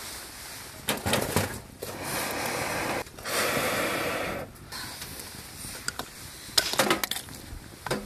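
Two long, even breaths blown through a telescopic metal blow pipe into a wood-burning stove to fan the fire. A few sharp knocks and clatter come before them and, louder, near the end.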